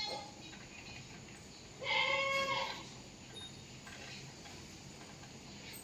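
A goat bleating: one loud, drawn-out call about two seconds in, with the tail of an earlier call at the very start.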